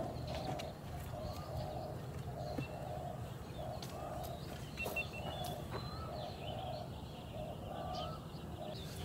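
Birds calling in the open: a low call repeated about twice a second, with short chirps from other birds now and then.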